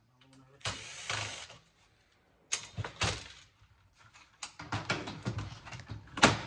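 Hand-handling clatter of a cable box being taken apart for scrap: a scraping rattle about a second in, sharp knocks around two and a half and three seconds, then a run of small rattling clicks ending in a loud knock near the end.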